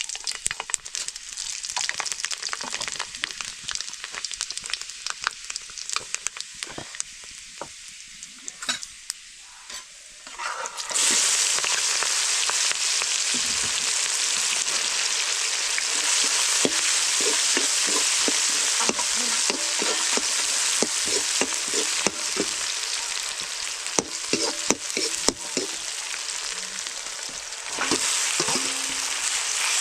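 Food sizzling as it fries in hot oil in a pan, stirred with frequent scraping clicks. About eleven seconds in, the sizzle jumps suddenly much louder and stays loud.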